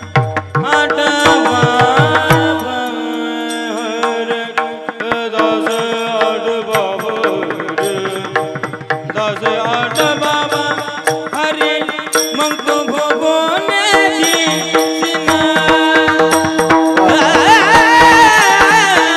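Devotional Marathi kirtan singing: a solo voice singing a melismatic chaal in raag Bhairavi over a steady held drone, with hand-drum strokes near the start and again near the end.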